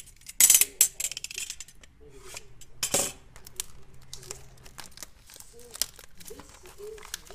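Plastic blister packaging of a replacement phone battery being handled and flexed: two loud crackles, about half a second in and again about three seconds in, with light clicks and rustles between.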